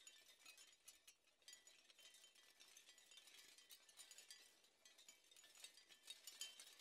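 Near silence: only a faint, dense crackle of tiny high ticks.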